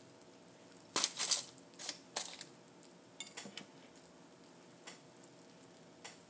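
Scattered light clinks and clatters of dishes and utensils being handled at a table, in a few quick clusters with gaps between.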